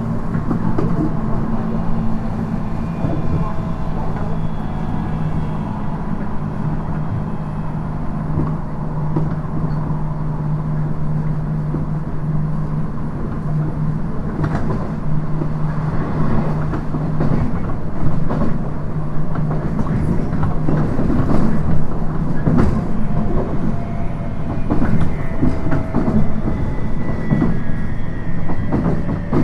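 Running sound from inside a JR East 719 series electric train, a unit known for an abnormal noise. A steady low motor and gear hum with a thin whine fades out about halfway through, and the rail-joint clickety-clack and rattling grow louder in the second half. Near the end a higher whine slowly falls in pitch.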